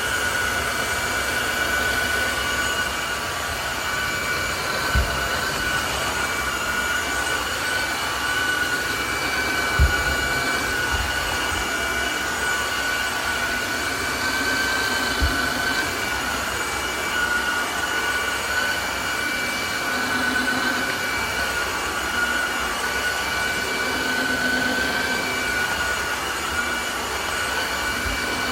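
Tineco Floor ONE S5 cordless wet-dry vacuum running steadily, its motor giving a high whine over the rush of suction, with a few dull knocks as the head moves.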